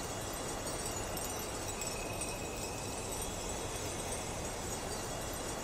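Steady background hiss with no distinct sounds: room tone of the recording between spoken lines.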